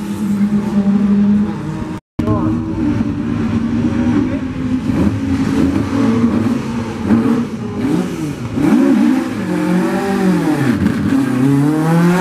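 Mk2 Ford Escort rally car engines. One accelerates away past the listener. After a brief cut, another is held at the start line with its throttle blipped, the engine note swooping down and up again and again, then revving up as the car pulls away near the end.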